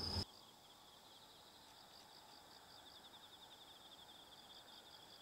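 Faint insects chirring outdoors: a steady, rapid trill with a softer call pulsing a few times a second above it, over a near-silent background.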